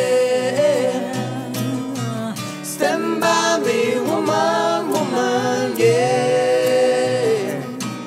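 Live acoustic band: an acoustic guitar strummed under several voices singing together, with long held sung notes.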